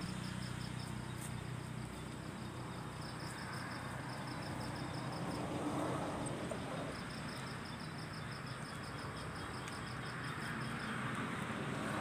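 Night insects chirping: a high, evenly pulsing trill that stops and starts, over a low steady hum.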